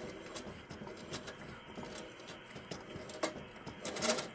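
Faint handling noises from the opened HP 606A signal generator: scattered light clicks and taps of metal parts being moved, with a louder scrape or rustle near the end.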